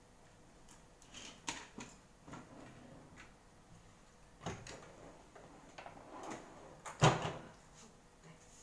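Scattered light clicks and knocks of someone handling things and moving about in a kitchen, with a louder thump about seven seconds in.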